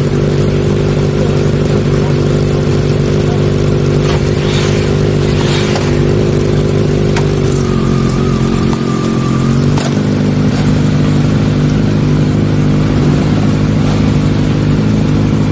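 Motorcycle engine idling steadily close by, its revs dipping for a moment about eight seconds in and then picking up again.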